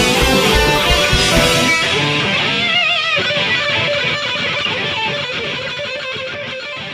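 Hard rock music ending: electric guitar and band playing, with the drums dropping out about two seconds in, leaving sustained guitar notes with wide vibrato as the sound fades away.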